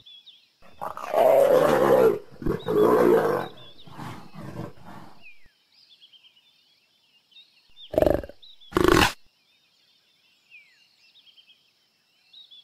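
Leopard calling: two long, loud growling calls in the first few seconds, weaker ones after, then two short calls about eight and nine seconds in. Faint high chirping runs in the background.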